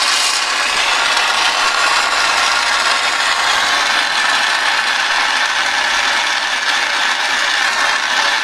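Hand-held propane–oxygen torch burning with a steady, loud hiss as its flame heats a fluxed strip of copper.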